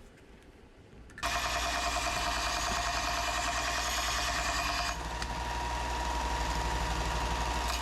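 A machine starts up suddenly about a second in and runs with a fast, even rattle, dropping slightly in level about four seconds later.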